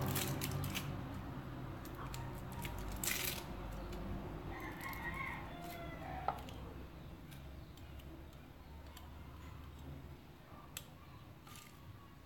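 A red onion being peeled with a kitchen knife over a wooden chopping board: dry skin crackling and rustling, with a few sharp light clicks of the knife, the loudest about three and six seconds in.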